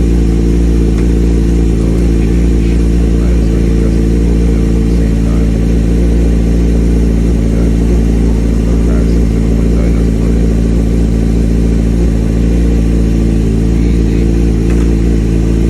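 2003 Suzuki GSX-R750's inline-four engine idling steadily at constant speed, run up after a fresh oil and filter change and new spark plugs.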